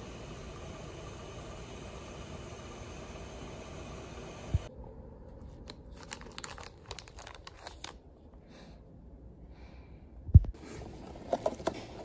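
Fuel pump nozzle dispensing fuel into a car, a steady hiss that cuts off suddenly with a knock. Then plastic snack packaging crinkling and rustling as it is handled, with two sharp thumps.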